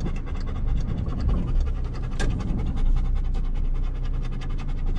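Golden retriever panting rapidly with its mouth open, inside a moving car's cabin over the low rumble of the engine and road. One sharp click about two seconds in.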